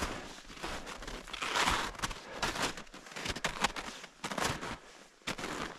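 Footsteps crunching in snow at a walking pace, with an uneven crunch at each step.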